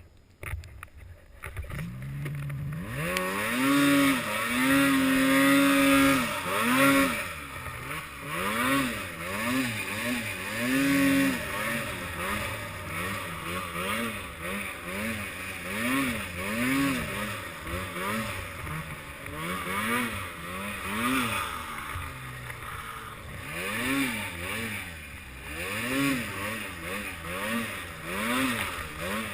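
Arctic Cat M8 snowmobile's two-stroke engine revving hard and falling off again and again, its pitch climbing and dropping every second or so. It comes up from quiet in the first couple of seconds.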